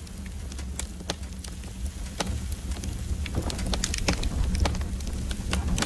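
Fire burning: a low rumble with many sharp crackles and pops, growing louder over the seconds.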